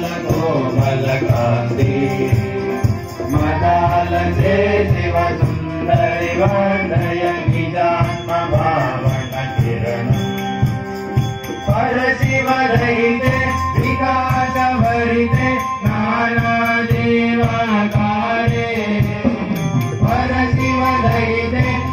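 Devotional bhajan sung by a group of young voices over microphones, with tabla keeping a steady beat underneath; new sung phrases begin about halfway through and again near the end.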